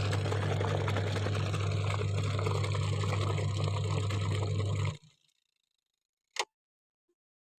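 Washing machine running with a steady low hum and a noisy wash over it. It stops abruptly about five seconds in, and a single click follows about a second later.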